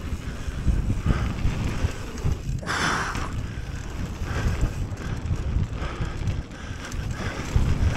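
Mountain bike riding down a dirt jump line: tyres rolling over the dirt, with wind rumbling on the camera's microphone. About three seconds in there is a short hiss.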